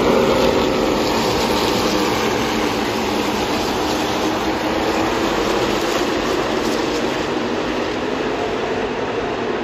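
Pack of NASCAR race trucks' V8 engines droning together as the field circulates in a tight two-wide formation, the pitch dropping slightly as they pass at the start and the sound then easing off a little.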